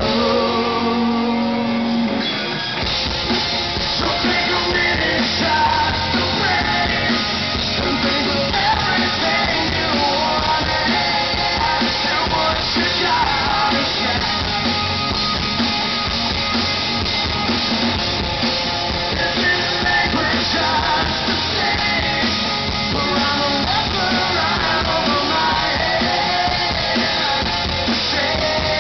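Live rock band playing electric guitars, bass and drums with a lead vocal, heard from within the audience. A held chord rings for the first two seconds or so, then the full band comes in.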